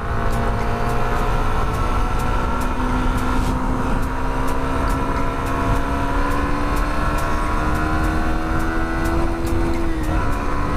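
Yamaha R15 v2 motorcycle's 150 cc single-cylinder engine under way, its pitch climbing slowly as the revs build, then dropping sharply about ten seconds in at an upshift.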